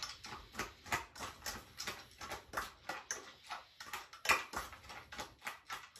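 Dog food being readied at a kitchen counter: irregular light clicks and taps, several a second, the loudest about four seconds in.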